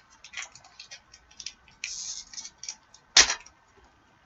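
Foil card-pack wrapper being handled and torn open: scattered crinkles and small clicks, a longer rustling tear about two seconds in, and one loud sharp crack a little after three seconds.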